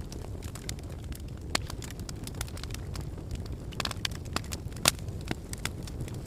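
Wood fire burning in a fireplace, crackling with frequent irregular pops over a steady low rumble of flame; the sharpest pops come about a second and a half in and again near five seconds.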